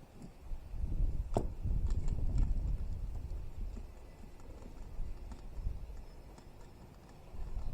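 A few knocks and clunks over low thudding, with one sharp click about a second and a half in.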